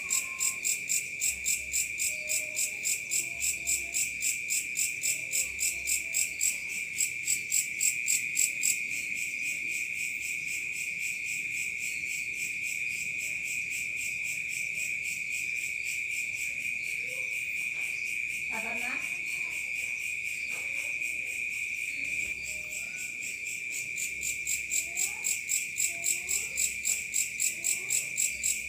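Night insects, crickets, chirring: a steady high trill with a rhythmic pulsing chirp a few times a second that evens out to a continuous drone in the middle and comes back near the end. A few faint, short rising calls sound underneath.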